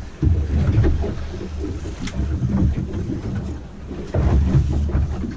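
Wind buffeting the microphone in gusts, a heavy low rumble that eases off in the middle and comes back strongly near the end, over the wash of choppy sea around a small fishing boat.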